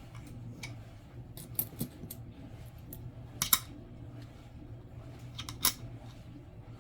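Coins being handled and set down on a hard surface, giving a few sharp, separate metallic clicks. The loudest click comes about three and a half seconds in. A low steady hum runs underneath.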